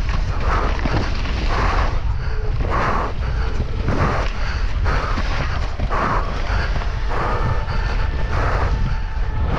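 Downhill mountain bike descending a muddy dirt trail, heard from a camera mounted on the rider: a steady wind rumble on the microphone, with the bike rattling and the tyres scrubbing over the dirt in surges every half second or so.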